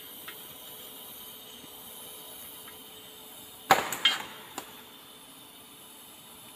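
Faint steady hiss of a TIG welding arc laying the root pass on a pipe joint, with a few sharp knocks about four seconds in.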